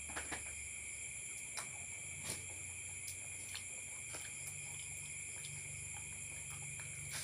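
Faint, steady chorus of night insects trilling in high, even tones, with a dozen or so faint clicks scattered through it.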